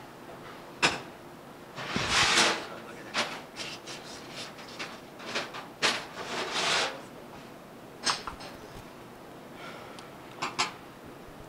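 Fillet knife cutting and scraping along the backbone and rib bones of a whole Atlantic salmon on a cutting board: short irregular scrapes with a few sharp knocks.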